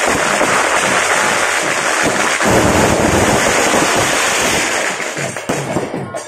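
A string of firecrackers going off in a dense, continuous crackle that thins out near the end, with rhythmic drum-led music underneath.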